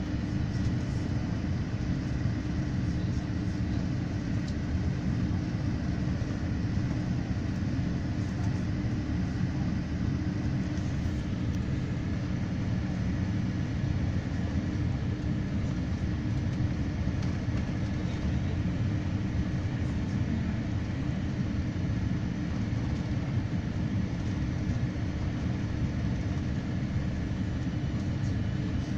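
Cabin noise inside an Air Canada Boeing 787 with GE GEnx-1B engines on approach: a steady, deep rumble of engines and airflow with a faint steady high whine over it.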